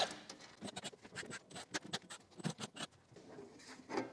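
Scattered light clicks and small rattles of screws and tools being handled on a metal battery case, then a short louder scrape about four seconds in as the steel lid is lifted off.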